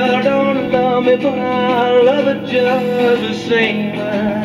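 A song with guitar and singing playing through the 1960s Columbia 360 K2 portable record player's tube amplifier and built-in speaker.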